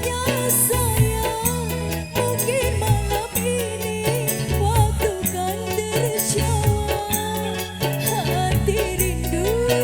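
Music: a song with a wavering, ornamented melody line over a stepping bass and a steady percussion beat.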